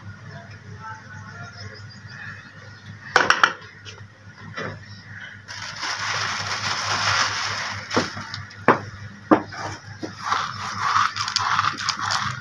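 Cooking sounds at a gas stove: a steady hiss sets in about five seconds in, with a few sharp clicks and knocks scattered through.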